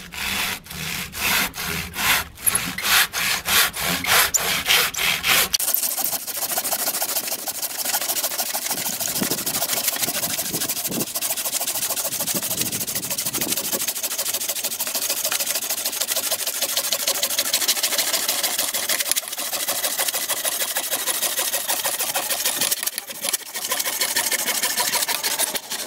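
Hand saw cutting across an ironbark log, bark and wood. It starts with separate push-pull strokes at about three a second, then about six seconds in becomes a fast, steady rasping that runs on.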